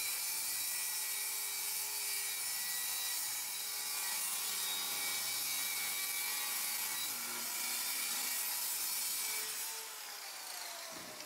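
Handheld circular saw ripping a long straight cut through a sheet of 3/8 in. marine plywood, with a steady whine of blade and motor. Near the end the cut finishes, the sound drops, and the saw spins down with a falling pitch.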